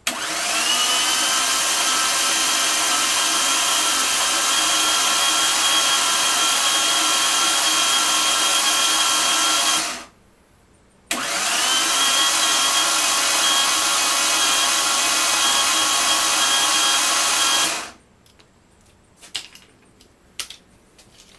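Electric drill spinning the crankshaft of a rebuilt 3.0L V6 to try to prime its oil pump: a steady motor whine that winds up to speed, runs about ten seconds, stops for about a second, then runs again for about seven seconds. A few light clicks follow near the end.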